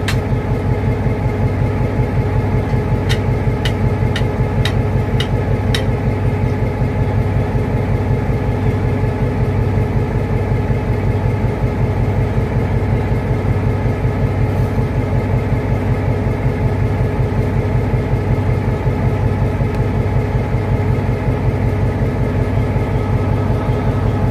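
The train's diesel engine running steadily at an even speed, with a quick run of about six sharp clicks a few seconds in.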